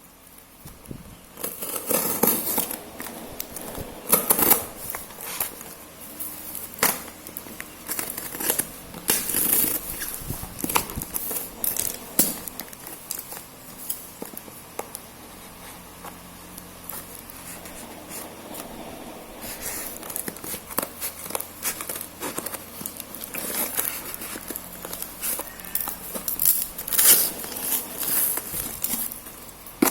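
A parcel being unwrapped by hand: the packaging crinkles, rustles and tears in irregular bursts with sharp clicks, coming in louder spells and easing off in between.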